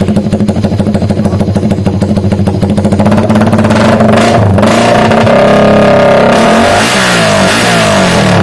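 Motorcycle running through a loud open aftermarket exhaust pipe: a fast, even pulsing idle just after starting, then revved up and down several times from about halfway in.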